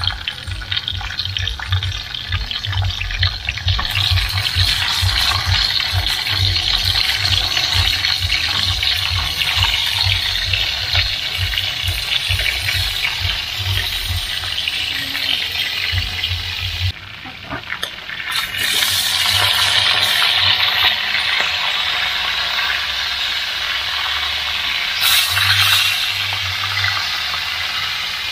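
Fish frying in hot oil in a wok: a steady sizzle and crackle, with a low rumble under it for the first half. The sizzle drops away briefly about two-thirds of the way through, then comes back louder.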